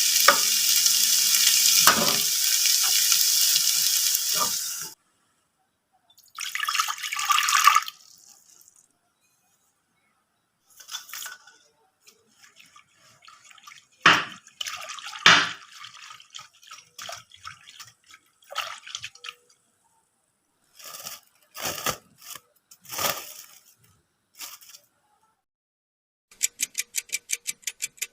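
Water running for about five seconds, then cutting off suddenly. It is followed by scattered short knocks and rustles, and near the end a fast, even tapping.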